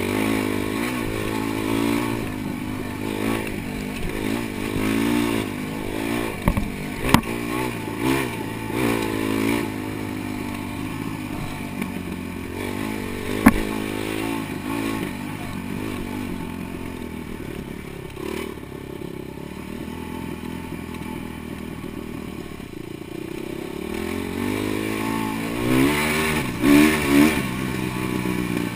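Dirt bike engine revving up and down over and over as it is ridden, with a few sharp knocks along the way and the loudest revs near the end.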